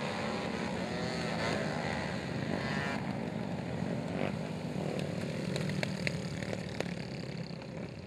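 Racing quad ATV engines revving, the pitch wavering up and down with the throttle. The sound changes at about three seconds in, and sharp clicks follow from about five to seven seconds in.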